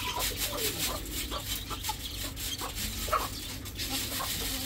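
Young chicks peeping in short, scattered chirps as they run in to grain being poured for them.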